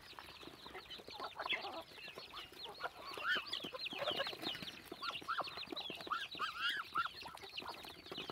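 A flock of chickens feeding: chicks peep shrilly and rapidly without pause, hens give several lower clucking calls in the middle, and beaks tap as they peck at the feed.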